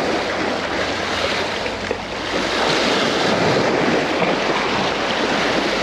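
Waves washing against jetty rocks in a steady, unbroken rush, with wind buffeting the microphone.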